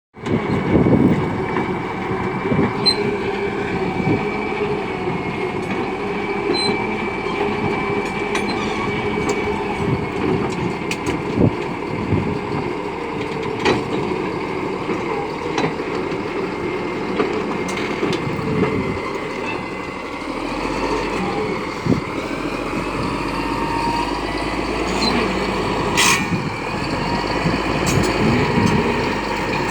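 Caterpillar D6D bulldozer running steadily, with a high whine and occasional sharp metallic clanks.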